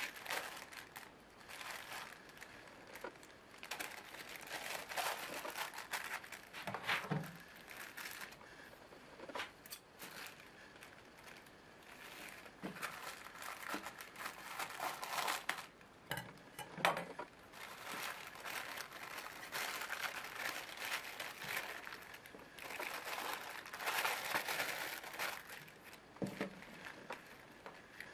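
Thin plastic packaging crinkling and rustling in irregular bursts as a black plastic mailer bag is handled and cut open, then a clear plastic bag is handled.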